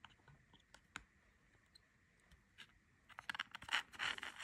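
A few faint isolated clicks, then from about three seconds in a dense run of scratchy crackling and ticking as a small green circuit board is handled on a hardboard work surface.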